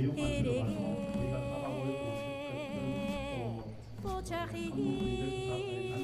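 A song with a singing voice holding long, wavering notes; one long note ends about three and a half seconds in and another begins about half a second later.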